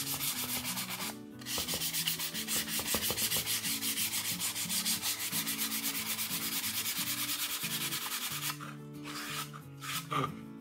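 Fine 320-grit sandpaper rubbed by hand over the filled fins of a model rocket, in quick, even back-and-forth strokes, several a second. This is the final smoothing pass that takes out the scratches left by coarser 220 grit. The strokes start about a second and a half in, stop a little past the middle, and give way to a few scattered strokes near the end.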